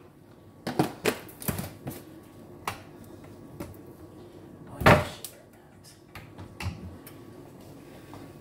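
A scattering of short clicks and knocks from things being handled in a kitchen, the loudest a sharp knock about five seconds in, over a faint steady hum.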